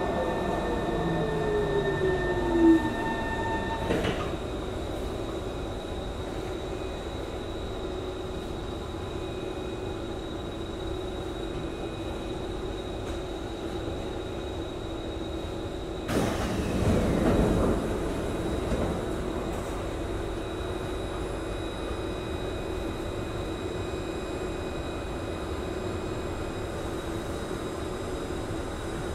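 Singapore MRT train heard from inside the carriage: a whine falls in pitch over the first few seconds as the train slows and stops. A steady hum follows, with a brief rushing noise about halfway.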